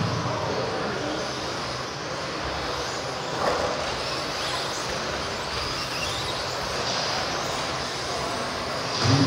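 Electric 1/10-scale stadium trucks with 13.5-turn brushless motors racing on a carpet track: high motor whines rising and falling over a steady wash of track noise, with a louder pass about three and a half seconds in.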